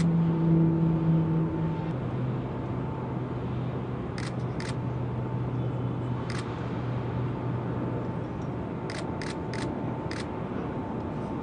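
Steady hum of the crane machinery lifting the load, its low tone dropping in pitch about two seconds in, over constant outdoor noise. A few sharp clicks break through, four in quick succession near the end.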